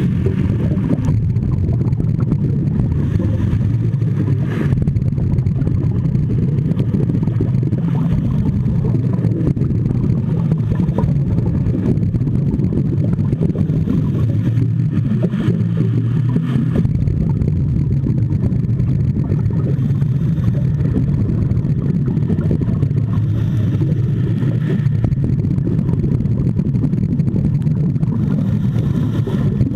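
Steady, muffled low rumble of underwater ambience picked up by a camera submerged in the sea, with a few faint brief swells of higher noise.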